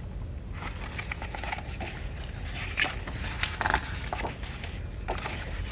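Pages of a picture book being handled and turned: scattered paper rustles and crinkles over a steady low room hum.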